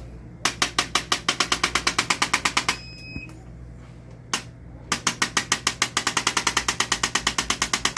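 Handheld electric chiropractic adjusting instrument delivering rapid repeated thrusts to the back, about eight taps a second. One run lasts about two seconds and ends with a short electronic beep. A click comes before a second, longer run.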